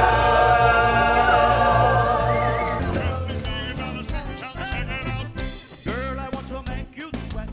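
Live band music with singing: a long held sung note closes a song and fades, then about three seconds in another song starts with sharp drum hits and singing.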